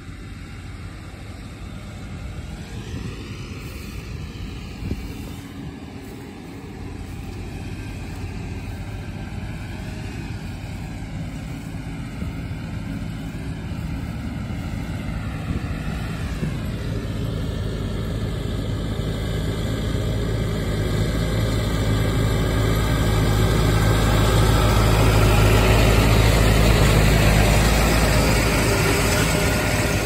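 John Deere 5100M tractor's diesel engine and John Deere 550M round baler running steadily while baling a large windrow. The sound grows louder from about halfway through as the rig comes close, and is loudest near the end.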